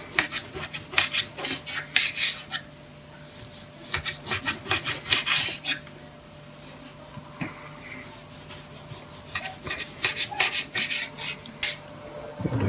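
Kitchen knife sawing through the tough, woody flesh of a dryad's saddle mushroom (Polyporus squamosus) and scraping on a wooden chopping board. It comes in three runs of quick back-and-forth strokes, with a pause of a few seconds near the middle.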